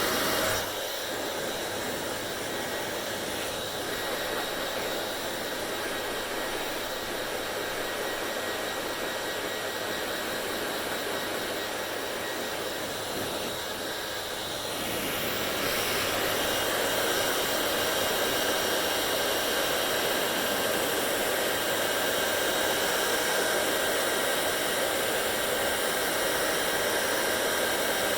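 Hand-held hair dryer blowing steadily, a rushing airflow with a faint motor whine. It gets a little quieter about a second in and louder again about halfway through.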